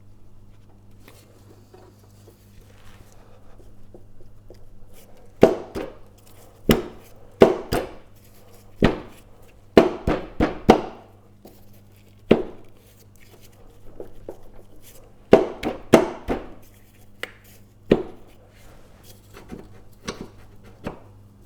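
Sharp metal knocks, about a dozen irregular strikes, each ringing briefly, as a damaged blade adapter is worked loose from a mower crankshaft with a puller. The adapter is stuck on the shaft, held by its damage.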